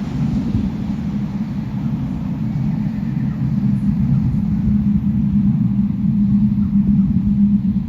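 Fukuoka City Subway 3000-series linear-motor train running through the underground station, a steady low rumble that slowly grows louder.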